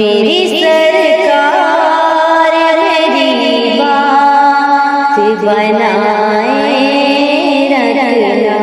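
Islamic naat: wordless, melismatic devotional singing with a wavering vocal line over a steady held drone.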